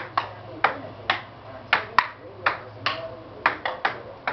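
Table tennis rally: a celluloid-type ping pong ball clicking off paddles and the table, about ten sharp ticks at an uneven pace of two to three a second.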